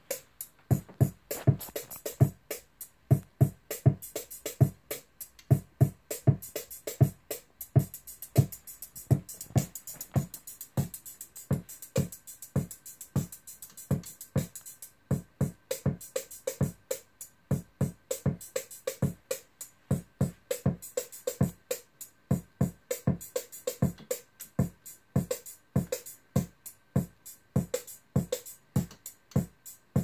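Hexinverter Mutant Drums analog drum modules in a Eurorack modular synth playing a looping electronic drum pattern: low drum thumps under fast high ticks, with a short break about halfway through.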